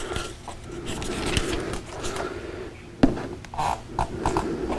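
Rustling and handling of a Bible's thin pages on a wooden lectern as he looks up a verse, with a sharp knock about three seconds in.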